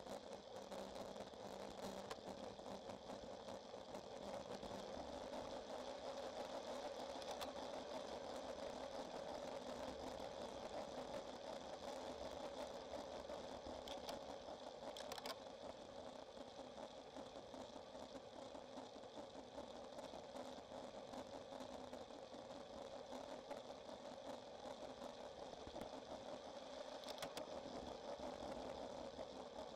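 Faint, steady hum and road noise of a road bike climbing on tarmac, as picked up by the bike-mounted camera, with a few brief clicks about halfway through and near the end.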